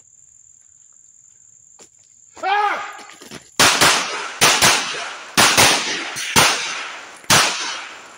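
A man yells once, then a 9mm CZ P-01 pistol fires seven shots over about four seconds, two of them as quick double taps, each shot ringing out with an echo. A steady high insect trill runs beneath until the shooting starts.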